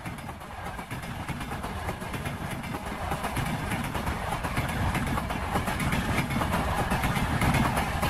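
A passing train's wheels clattering over the rail joints over a rumbling roll, growing steadily louder.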